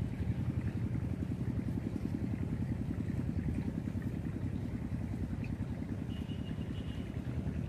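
An engine running steadily at an even speed, a rapid low throb that does not change.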